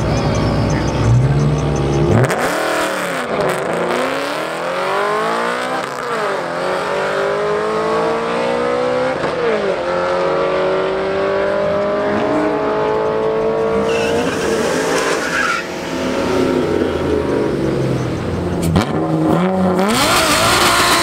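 A BMW sedan and a Ford Mustang launching off the drag-strip start line and accelerating hard. Engine pitch climbs and drops back at each upshift, about three times. Near the end, a small car's engine revs with its tyres spinning.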